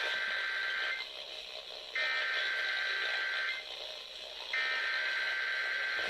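Emergency Alert System SAME header data tones heard through a radio's speaker. Three bursts of data tones, the first already under way, each about a second and a half long with roughly a second's gap between them. They open a Required Weekly Test.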